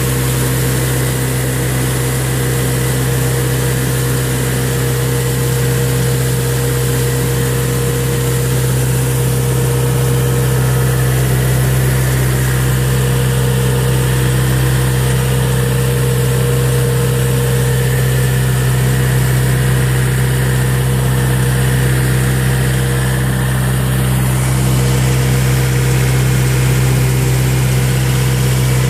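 Tractor engine running steadily at a constant speed while working a mounted fertilizer spreader.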